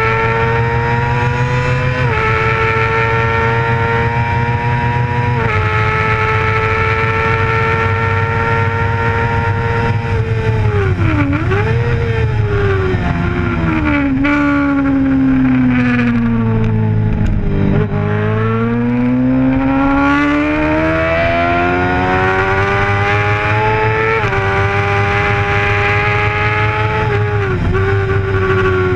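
Racing sport bike engine heard from onboard, running at high revs over a rush of wind. The pitch steps down briefly a couple of times early on and dips once around the middle. It then falls steadily for several seconds before climbing again, with another step and dip near the end.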